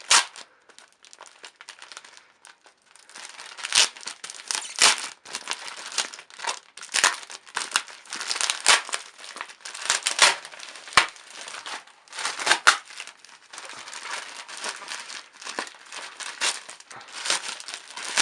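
A parcel's packaging being torn open and handled: crinkling and rustling with sharp tearing sounds. It starts sparse, a few clicks and rustles, and becomes nearly continuous about three seconds in.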